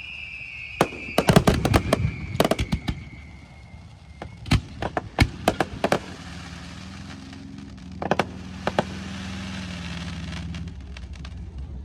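Daytime fireworks going off: a high whistle fades out over the first couple of seconds while sharp bangs and crackles come in quick clusters about one to three seconds in, again around five seconds, and once more around eight to nine seconds.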